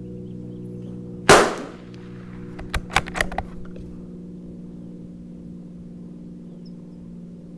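A single shot from a Tikka T1x bolt-action .22 LR rifle, sharp and loud with a short ring-off, about a second in. About a second and a half later comes a quick run of four or five metallic clicks as the bolt is worked to eject the case and chamber the next round, over a steady low hum.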